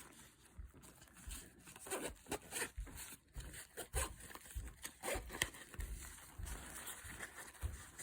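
A fabric EDC pouch being handled and opened: faint rustling of the cloth with scattered small clicks and knocks.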